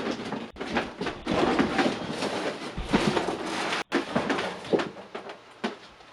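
Large cardboard shipping box being opened and handled: continuous scraping, rustling and crinkling of cardboard and packing material with scattered knocks, growing fainter after about four seconds.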